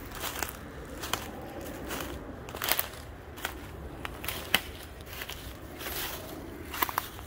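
Footsteps crunching through dry fallen leaves and twigs, an uneven run of crackles and snaps with a few sharper cracks.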